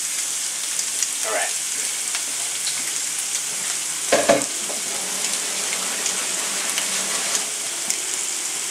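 Ground Italian sausage frying in canola oil in a stainless steel skillet: a steady sizzle with scattered small pops. A brief knock about four seconds in.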